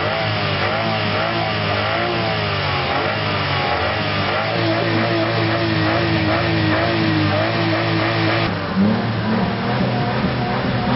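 Small hatchback's engine revved hard with the accelerator pumped, its pitch rising and falling, then held at high revs near 7,000 rpm for a few seconds. About two-thirds of the way in the sound changes abruptly to the engine heard at the smoking exhaust.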